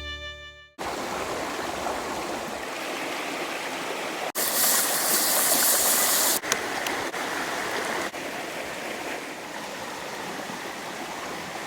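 Creek water running, a steady rushing that follows the last second of a fading music tail. It comes in several short sections with abrupt jumps in level, loudest and brightest from about four to six seconds in.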